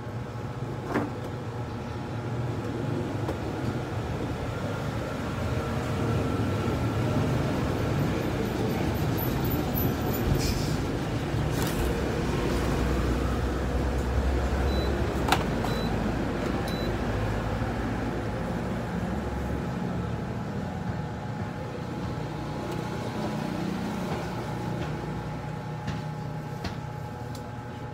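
Steady low mechanical rumble, like a large engine running, that builds up about five seconds in and eases off after about twenty seconds. A few sharp clicks and three short high beeps sound over it in the middle.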